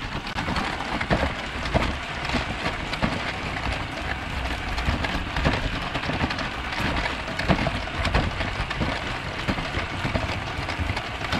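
Mould King brick-built Mallard model locomotive running on plastic track, heard close up from a camera riding on the train: its electric drive and wheels make a steady dense rattle, full of small clicks and knocks.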